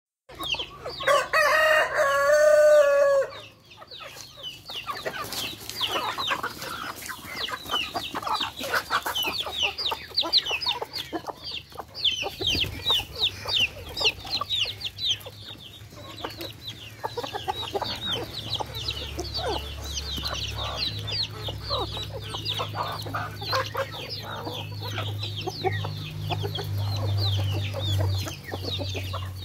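A rooster crows loudly once at the start, then a flock of chickens clucks and pecks while feeding, with many short quick sounds running on throughout. A low hum comes in about halfway.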